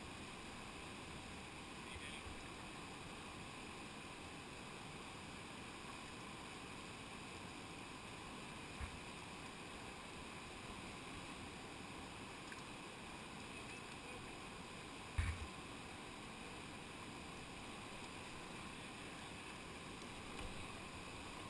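Steady rush of a whitewater river running over rocks, with a short low thump about 9 s in and a louder one about 15 s in.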